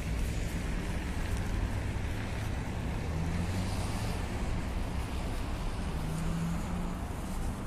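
Steady rumble of road traffic, with low engine hums that swell and fade as vehicles pass.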